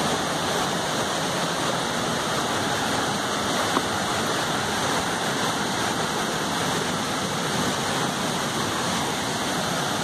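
Rain-swollen, muddy stream rushing over rocks below a small waterfall: a steady, unbroken rush of water.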